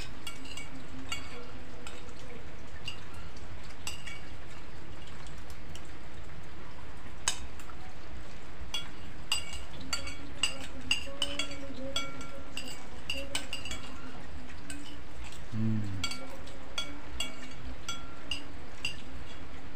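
Metal spoon clinking and scraping against a plate during eating, with irregular clinks that come more often from about halfway through. A steady hiss of rain runs underneath.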